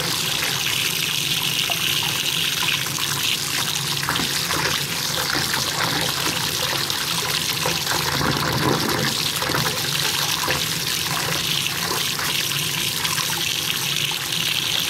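Bathtub tap running steadily, water pouring into a filling tub.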